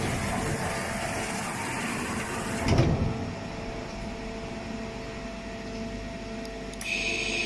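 CNC vertical machining center running: a hiss lasting about two and a half seconds that ends in a heavy clunk, then a steady mechanical hum, with a high steady whine starting near the end.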